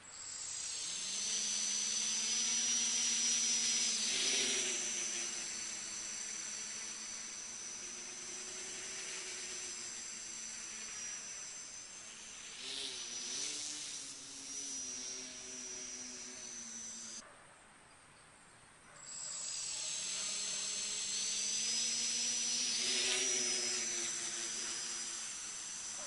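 Small FPV quadcopter's electric motors and propellers buzzing with a high whine, the pitch shifting as the throttle changes. The sound drops out for about two seconds past the middle, then comes back.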